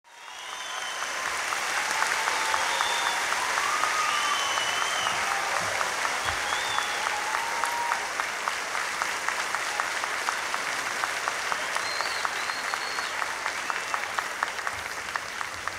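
Live concert audience applauding and cheering, with clapping in a steady rhythm of about four claps a second and several high whistles rising and falling over it.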